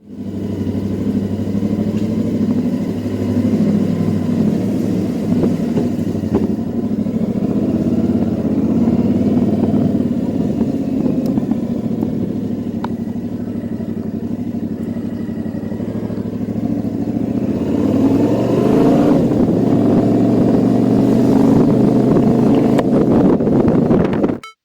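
Yamaha Tracer 7's parallel-twin engine running under way, holding a steady note, then revving up with rising pitch in the later part before the sound cuts off suddenly.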